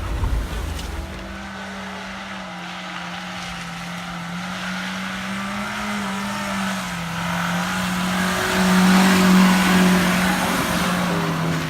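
Suzuki Sidekick's engine held at high revs, climbing a little later on, under a rushing hiss from the tyres that builds to its loudest about nine seconds in.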